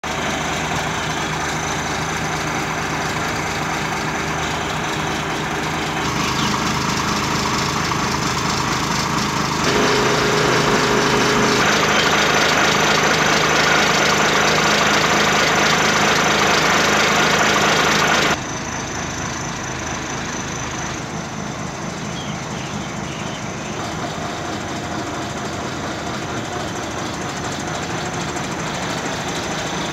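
Diesel engine of a Tata LPT 3118 truck running steadily. It grows louder about six and ten seconds in, then drops back sharply about eighteen seconds in.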